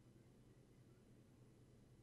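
Near silence: a faint, steady low hum.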